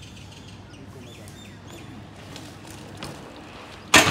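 Faint bird chirps over quiet outdoor background. Near the end, a BMX bike hits a steel handrail with a sudden loud metallic impact.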